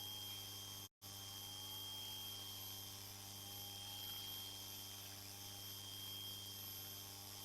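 Faint, steady electrical hum and hiss with a constant thin high-pitched tone, cut off for an instant about a second in. No rumble or clatter of rolling rock is heard.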